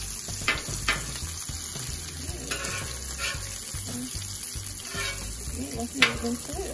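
Bacon sizzling as it fries on a griddle, with a few sharp knocks and scrapes of a utensil against the cooking surface, the loudest about six seconds in.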